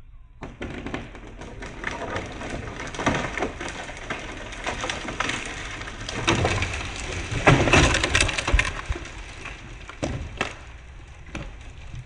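A large tree coming down: wood cracking and branches snapping and breaking in an irregular run. The snapping builds to its heaviest crash of breaking limbs about two-thirds of the way through, then dies away into scattered cracks.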